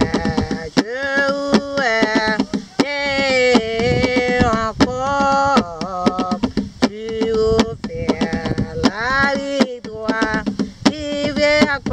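A woman singing an unaccompanied melody in held, gliding notes, with sharp percussive strikes keeping a beat under her voice.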